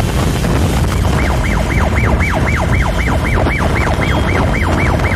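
Wind and road rumble from riding on a motorcycle through highway traffic, loud and steady. From about a second in, a rapid warbling electronic tone sweeps up and down about three to four times a second.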